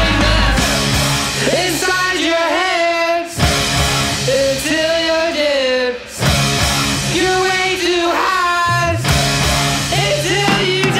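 Surf rock band playing, with electric guitars, bass and drums under a man singing lead. The band drops out briefly twice, about three and six seconds in.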